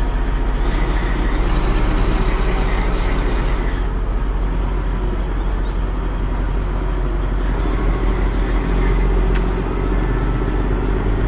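Peterbilt 379 semi truck's diesel engine running steadily as the truck pulls slowly away from a stop, heard from inside the cab.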